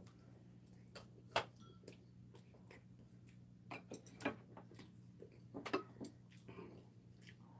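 Chopsticks and a metal spoon clicking and tapping against ceramic bowls and plates during a meal: a scattering of short sharp clicks, the loudest about a second and a half in, over a faint steady low hum.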